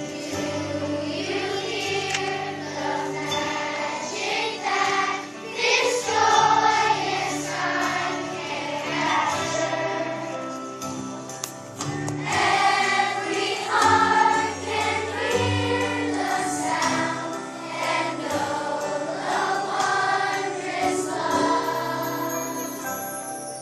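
Music: a choir singing, many voices holding and moving between notes.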